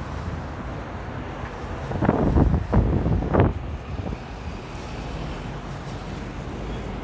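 City street ambience: traffic going by with wind on the microphone, swelling louder for a second or so about two seconds in.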